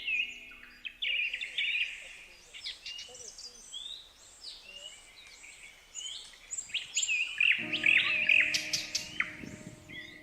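Several birds chirping and calling, with many short whistled and chirped notes overlapping throughout. A steady, low sustained chord comes in about three-quarters of the way through.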